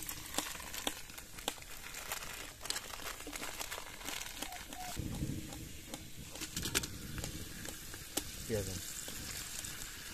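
Bay leaves and whole spices sizzling in hot mustard oil in an aluminium pot, a steady hiss broken by many small pops and crackles.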